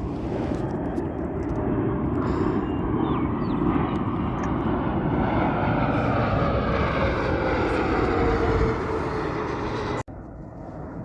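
Jet airliner passing close by: a loud, steady engine rush and rumble, building up, with a whine that falls in pitch as it goes past, cut off abruptly near the end.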